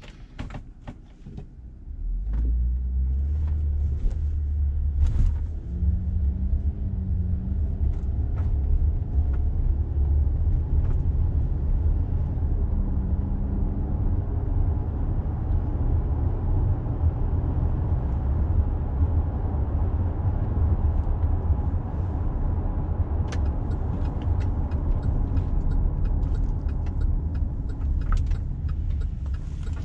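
Cabin noise of a GMC SUV pulling away and driving at speed: a low, steady rumble of engine, tyres and road that starts about two seconds in, after a few clicks.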